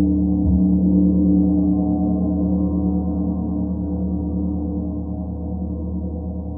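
Starchild gong, its face hammered in a star pattern, ringing after a soft mallet stroke near the start: a deep, sustained wash of low tones that slowly fades.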